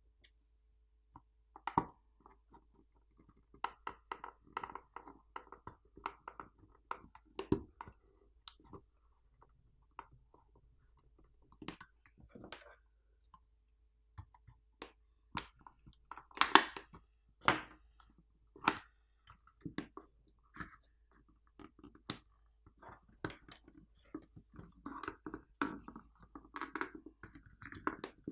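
The plastic top and bottom housings of a video doorbell being worked apart by hand: irregular small clicks and rubbing of plastic, with a few louder snaps about two-thirds of the way through as catches let go.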